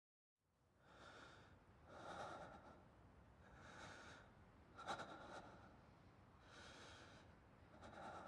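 Faint breathing: a series of about six soft breaths a second or two apart, with a sharp click about five seconds in.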